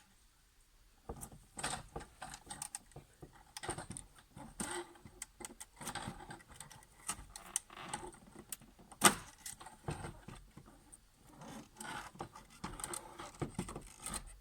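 Small clicks, knocks and rattles of the old in-tank fuel pump assembly being worked and wiggled out through the fuel tank opening, with one sharper knock about nine seconds in.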